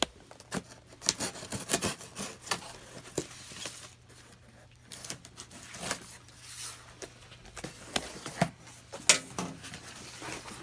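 A cardboard box and its packaging being opened and handled by hand: scattered rubbing and scraping with a few sharp clicks and knocks.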